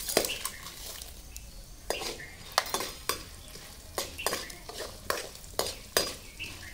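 Steel ladle stirring and scraping urad dal and chana dal frying in oil in a steel kadai, with irregular metal-on-metal clinks about every half second to second over a soft sizzle. The lentils are being roasted to golden brown.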